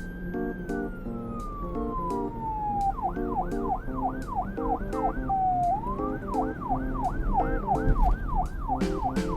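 Police car siren: a slow wail falling in pitch, then switching to a fast yelp of rising-and-falling sweeps about two to three a second, breaking briefly near the middle before resuming. Background music with a steady beat plays underneath.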